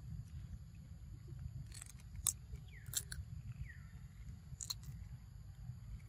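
Macaque biting into and chewing a green mango: a few sharp, crisp crunches spread over a few seconds.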